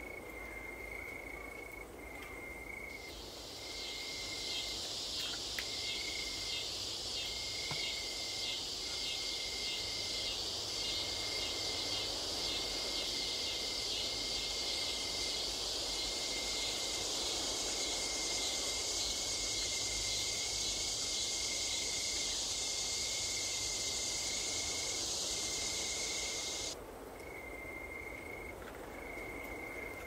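Forest insects calling: a dense, shrill buzz comes in a few seconds in and cuts off suddenly near the end, over a high note repeated about once a second throughout.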